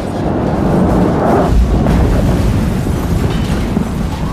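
Explosion sound effect: a long low rumbling boom that builds about a second in and eases off toward the end.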